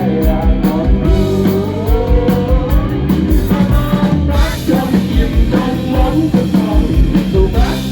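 Background music: a rock song with a singing voice carrying a wavering melody over a steady drum beat.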